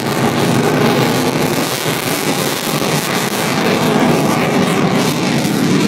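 Loud, steady jet-engine roar.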